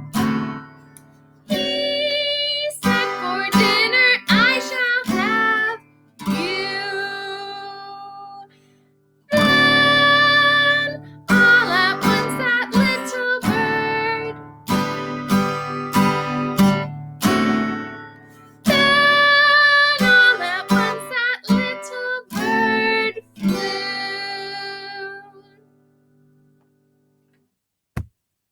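Acoustic guitar strummed under a single voice singing the call phrases of a children's call-and-response song. After each phrase only the guitar rings on, leaving a gap for the response. The guitar dies away to silence near the end.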